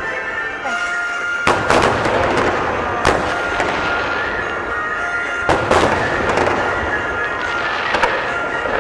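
Aerial fireworks bursting: about six loud bangs, two of them in quick pairs, with crackling between, over music playing throughout.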